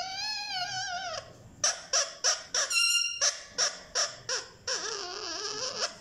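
Indian ringneck parakeet calling: a long wavering call, then a quick run of short sharp squawks with a brief clear whistle among them, and another wavering call near the end.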